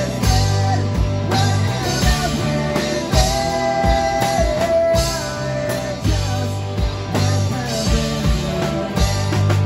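Rock band playing live on electric guitars and drum kit, with a held melody line over a steady drum beat.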